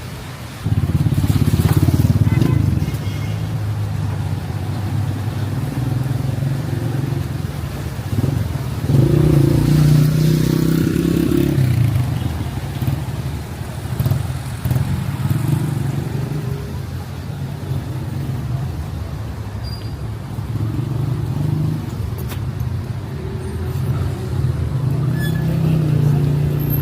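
Street traffic: vehicle engines running and passing close by, rising and falling in loudness as they go by.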